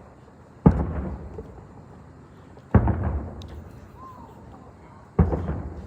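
Aerial firework shells bursting: three deep booms about two seconds apart, each trailing off over about a second.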